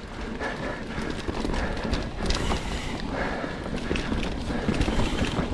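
Mountain bike riding over a dirt singletrack: a steady rush of tyre and trail noise with many irregular knocks and rattles from the bike over bumps.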